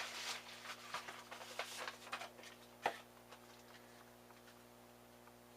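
Faint rustling and crinkling of a plastic packaging bag being handled, with one sharp click near the middle, then quiet.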